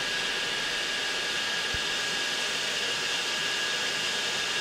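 Cooling fan of the Apolo 300 bar compressor's built-in 220/12 V power supply running steadily: a rush of air with a thin steady whine, the compressor pump itself not yet started.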